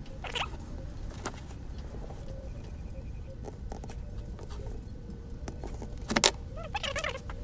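Handling noise as a hollow lightbox is lifted and turned on a workbench: light taps and knocks, the loudest a sharp knock about six seconds in, followed by a few short, wavering high squeaks. A steady low hum runs underneath.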